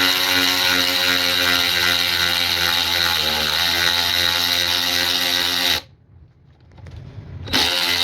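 Byczone 3/8-inch cordless electric ratchet on a DeWalt 20V battery running with a steady motor-and-gear whine, slowing slightly about three seconds in. It stops abruptly about six seconds in as the trigger is let go, then starts again about a second and a half later.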